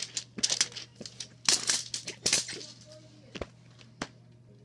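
Plastic wrapping being torn and crinkled off a giant plastic toy egg in a string of short bursts, followed by two sharp clicks near the end.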